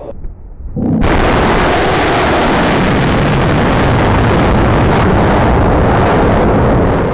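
Chunma surface-to-air missile launching from its launcher vehicle: the loud, steady roar of its solid-fuel rocket motor, starting abruptly about a second in.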